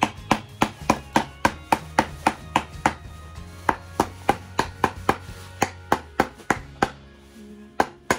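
Small hammer tapping on a small wooden birdhouse: quick, even strikes at about three a second, with a short pause near the end before two more taps.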